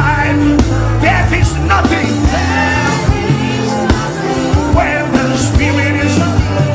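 Worship music with steady bass and drums and a wavering singing voice over it.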